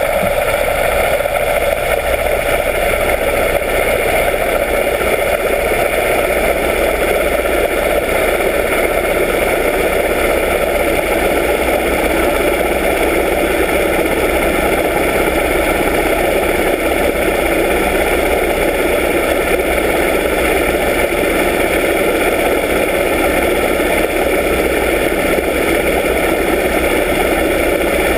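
A yacht's inboard engine turning a 16-inch folding propeller, recorded underwater. It is a steady drone with a hiss and several steady tones, rising to full level just as it begins and then holding even.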